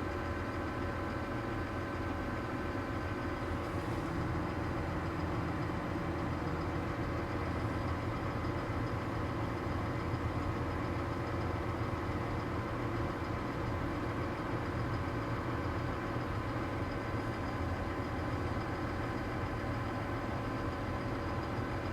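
New Holland T7.315 tractor's six-cylinder diesel engine running steadily, a constant low drone with a few steady whines above it.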